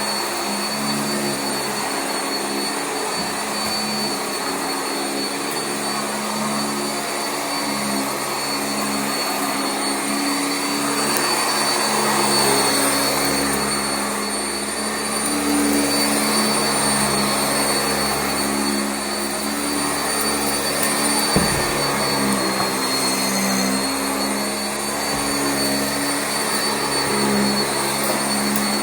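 Sanitaire SC679J commercial upright vacuum running steadily with a high motor whine, its lower hum shifting in pitch. A short thump comes about two-thirds of the way through.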